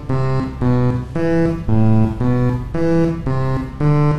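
A game-show memory sequence of musical tones: separate pitched notes, each a different pitch, played one after another at about two a second, the cue sequence the contestants must repeat on the buttons.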